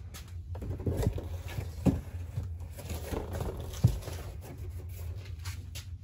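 Handling noise, irregular rustling and scraping with two sharp knocks about two and four seconds in, over a steady low hum.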